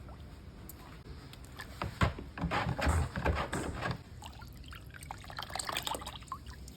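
Liquid being poured and splashing, in irregular spurts with many small clicks. The busiest stretch is in the middle, and there is a second, lighter spell near the end.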